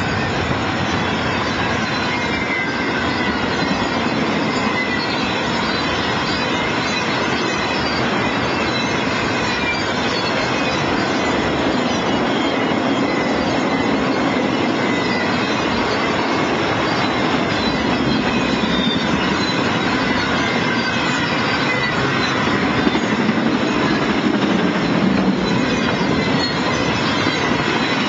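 Intermodal freight train cars rolling steadily past, a continuous rumble and rush of steel wheels on rail, with faint thin wheel squeals at times.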